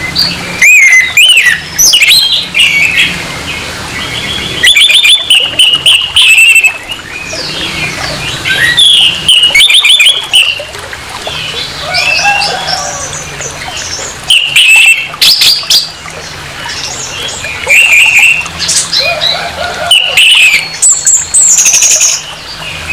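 Orange-headed thrush singing its harsh, rough song in loud bursts of quick, varied phrases with short pauses between, about eight bursts in all.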